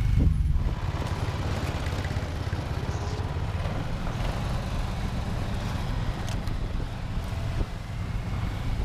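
Motorized snow dog engines running on the move along a snow trail, with a steady low rumble of wind on the microphone. In the first half-second the louder sound of a snow dog that has just driven past trails off.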